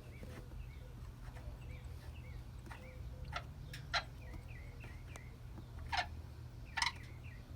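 Faint birds chirping repeatedly in the background over a low steady hum, with four sharp clicks in the second half.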